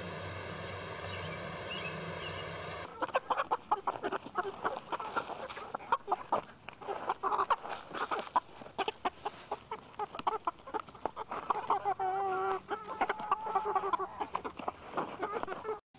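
A steady hum for about three seconds, then chickens clucking: rapid, irregular short calls, with a few longer wavering hen calls near the end.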